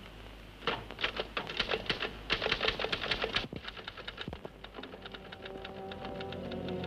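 Manual typewriter being typed on in quick, uneven keystrokes, loudest for the first few seconds, then fainter as music comes in underneath.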